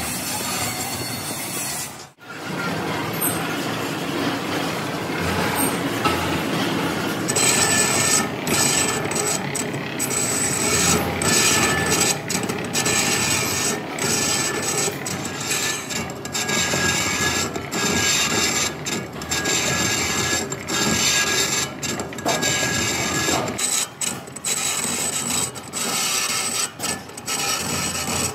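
Large spoked gear blank spinning on a manual lathe while a cutting tool turns its rim: a continuous scraping, rasping sound of metal being cut. There is a brief break about two seconds in, and from about seven seconds the sound grows brighter, with a faint steady high whine.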